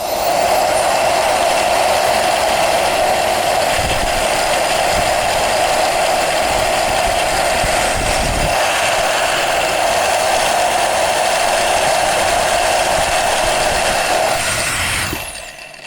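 Electric jet fan blowing hard through a 3D-printed plastic jet turbine model, a loud steady rushing whine with the printed blades spinning and rattling; the maker earlier said it sounded like the turbine was getting stuck. It shuts off near the end and the sound dies away.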